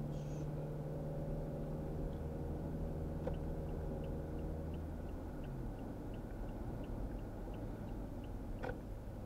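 Car engine and tyre noise heard from inside the cabin while driving, the engine's steady hum dropping in pitch about five and a half seconds in. A light, even ticking, about three a second, runs for several seconds through the middle.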